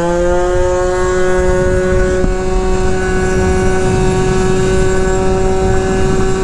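72cc Polini-kitted two-stroke Honda Elite scooter engine at full throttle through an S23 prototype expansion-chamber exhaust. The revs rise briefly and then hold steady high in the powerband, a constant high-pitched exhaust drone over a low wind rush.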